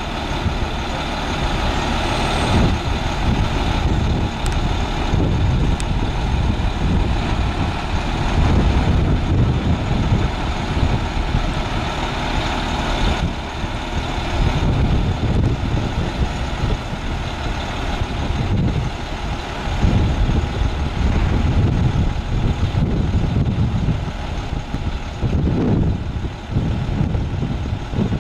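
International DT466 diesel engine of a service truck running steadily while the Liftmoore crane on its bed raises its boom.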